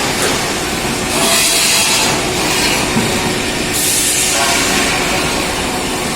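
Twin-blade cold saw cut-off on a steel tube mill running with steady mechanical clatter, with two stretches of loud high hiss, one about a second in and a shorter one near four seconds.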